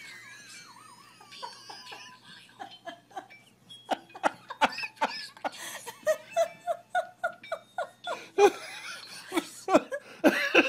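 A person laughing hard in a run of short, even bursts, building again near the end, over sharp crinkling of a plastic bag that a cat is playing in.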